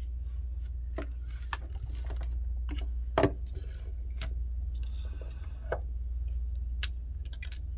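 Plastic electronic parts, the display panel and speaker housing of a disassembled smart clock, being handled and set down on a table: a scatter of small clicks and knocks, the loudest about three seconds in, over a steady low hum.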